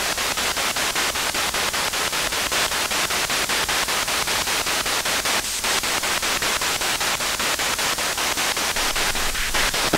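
Steady hiss of static from a homemade instrumental-transcommunication (spirit box) device, chopped in a fast, even pulse. It is the noise in which ghost hunters listen for spirit voices in answer to their questions.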